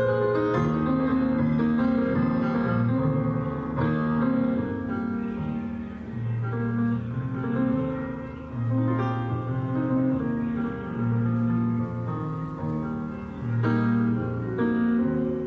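Slow instrumental music, with sustained notes and a low note that sounds again every two seconds or so.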